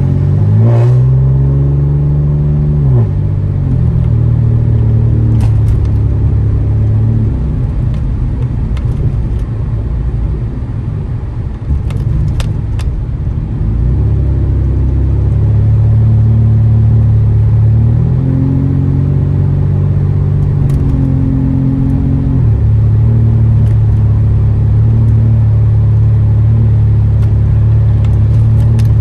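Catless, straight-piped exhaust of a 2015 Ford Taurus Limited droning while driving. The engine note climbs under acceleration and then drops back twice, near the start and about two-thirds of the way through. It eases off briefly about 11 seconds in, and a few sharp clicks are scattered through.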